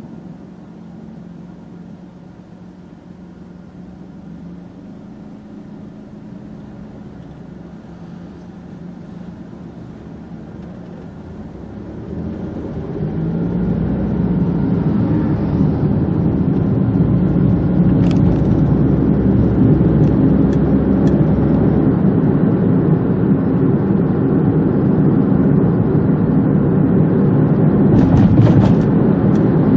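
A car's engine idles with a steady hum while the car waits in traffic. About twelve seconds in it pulls away and accelerates, and the engine and road noise grow louder and then hold steady. A few short clicks come near the end.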